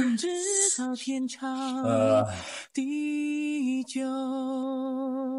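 Slow singing with no words heard: a voice holding long, wavering notes that step between a few pitches, the last note held for about two seconds.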